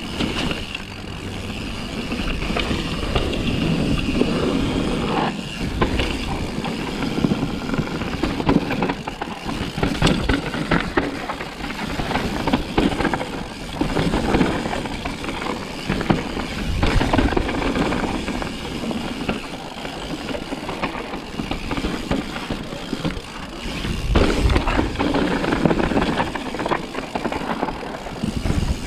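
Propain Tyee downhill mountain bike running fast down a rough gravel trail: tyres crunching over loose stones and the bike rattling and knocking over bumps in quick, irregular succession, with rougher, louder stretches now and then.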